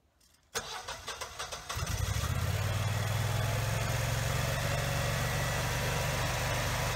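Generac 13kVA gas standby generator starting: the starter cranks the engine for about a second, then the engine catches and settles into a steady run.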